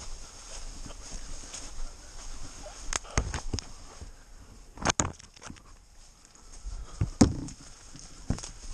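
Footsteps through dry leaf litter and brush, with several sharp snaps and cracks of twigs and branches; the loudest crack comes about seven seconds in.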